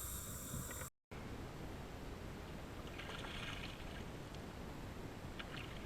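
Water sounds around a kayak on a river: low steady water and wind noise, with a brief splashing burst about three seconds in and a few light clicks near the end. The sound drops out completely for a moment about a second in.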